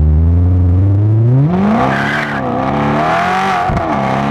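Maserati GranSport's 4.2-litre V8 through its modified exhaust, heard at the twin tailpipes: idling, then revved up sharply about a second and a half in and held at higher revs with a couple of brief dips.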